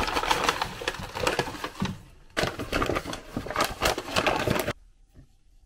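Paper bag and plastic produce bags crinkling and rustling as groceries are taken out and set down, with a short lull about two seconds in. The sound stops suddenly near the end.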